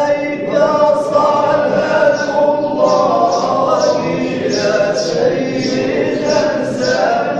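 Men's voices chanting together in a Sufi dhikr hadra, sustained melodic group chanting with a steady rhythmic pulse of sharp accents a little under two per second.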